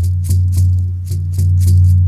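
Horse skin drum struck in a quick steady beat with a combined beater and rattle: each stroke brings a deep, resonant boom, and the rattle head shakes with every hit.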